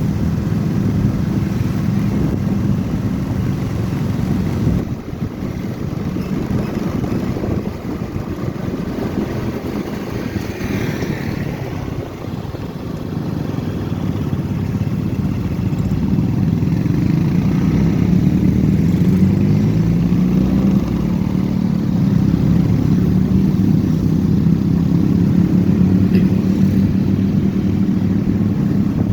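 Motorcycle engine running under way, with road and wind noise. The engine note climbs as it speeds up past the middle, then holds steady.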